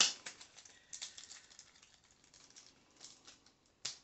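Thin plastic baggie crinkling and crackling in the hands as trading cards are worked out of it: a quick run of small crackles at first, thinning out, then one sharper click near the end.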